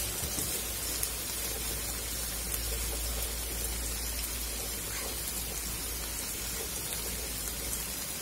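Sliced onions and spices frying in oil in an aluminium karahi: a steady sizzle with a few faint pops.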